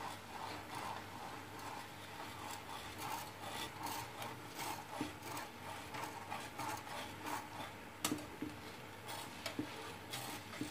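Wire whisk stirring hot milk in a pan: a steady, fairly faint run of swishes and scrapes as the wires sweep the pan's bottom, with small irregular clicks of wire on metal.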